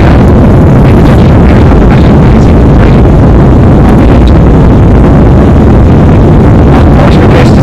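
Loud, steady rumble and rush of jet engines and airflow heard inside an airliner cabin during the climb after takeoff.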